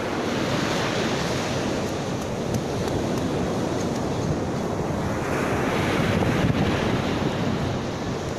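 Ocean surf breaking and washing up a sand beach, swelling louder about six seconds in, with wind buffeting the microphone.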